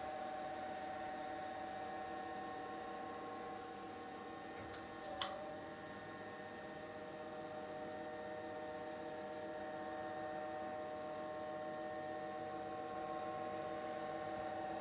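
The original 20-year-old combustion fan of a Range Powermax 155x boiler running with a steady, droning whine of several fixed tones: the grinding noise these fans make when they get old. A single sharp click about five seconds in.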